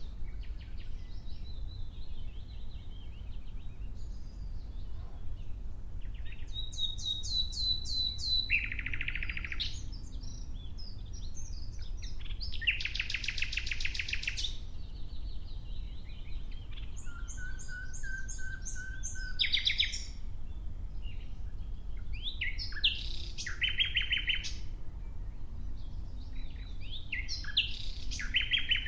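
Nightingale singing in separate phrases of rapid repeated notes and trills, one of them with a long steady whistle, with pauses of a few seconds between phrases. A low steady rumble runs underneath.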